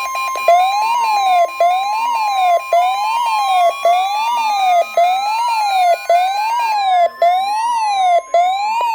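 Emergency alert tones from a weather alert broadcast: a steady attention tone near 1 kHz under an electronic siren that sweeps up and down about once a second. A slowly rising tone joins about three seconds in.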